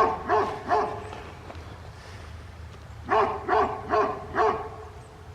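A dog barking in quick runs: three barks right at the start, then five more about three seconds in.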